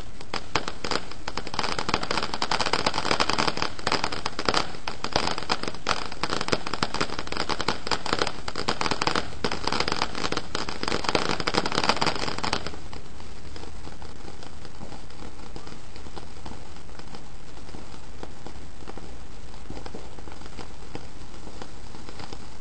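Ground fountain firework crackling densely as it sprays sparks, a rapid, irregular spatter of sharp pops. It cuts off abruptly a little past halfway through.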